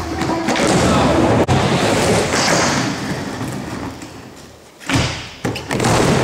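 Skateboard wheels rolling on a wooden mini-ramp, a loud rumble that fades as the skater reaches the top of the ramp. About five seconds in the board comes down onto the ramp with a sudden thump and the rolling picks up again.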